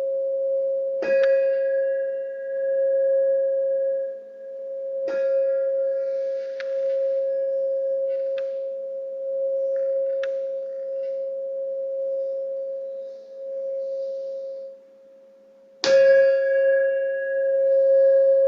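A steady pure tone, played as a healing frequency of unconditional love, sounds throughout and fades briefly near the end. Over it a singing bowl is struck three times, about a second in, at about five seconds and near the end, and each strike rings on.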